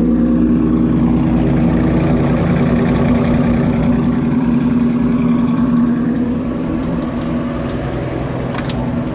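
The 1966 Willys pickup's swapped-in Chevrolet Opala engine, which runs on ethanol, idling steadily just after starting.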